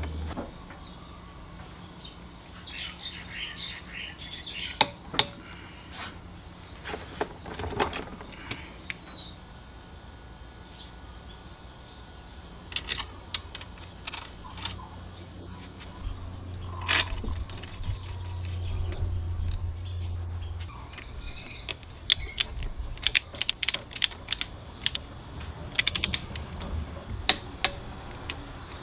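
Hand tools and metal parts being handled in a workshop: scattered sharp clicks and clinks, irregular throughout, with a low hum for a few seconds just past the middle.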